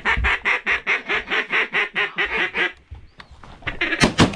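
A fast run of about fifteen loud mallard-style quacks over the first three seconds, then two shotgun shots in quick succession about four seconds in.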